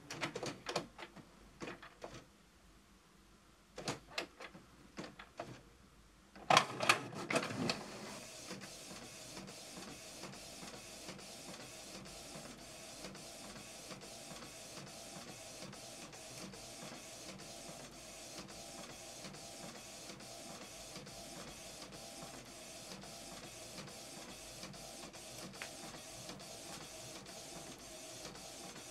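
Canon inkjet printer printing a sheet: scattered clicks and clatter as it takes up the paper, a louder clatter about six and a half seconds in, then a steady whir with regular ticks as the print head shuttles back and forth.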